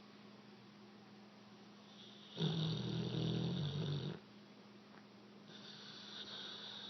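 American Bulldog snoring in his sleep: one loud snore lasting about two seconds, starting a couple of seconds in, then a quieter breath building near the end.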